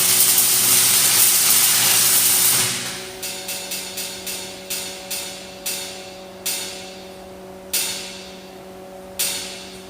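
Stick (arc) welder's arc crackling and hissing steadily for about three seconds, then cutting off. It is followed by a dozen or so sharp ticks that come further and further apart, over a steady low hum.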